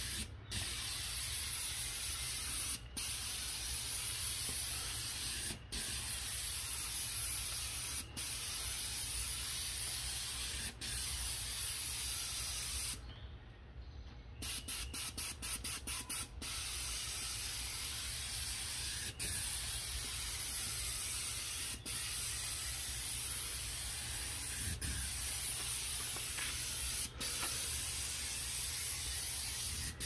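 Graco 395 Ultra airless paint sprayer's gun spraying paint through a 310 FFLP tip: a steady hiss that breaks off briefly every two to three seconds between passes. Midway it stops for about a second, then is pulsed on and off rapidly for about two seconds before spraying steadily again.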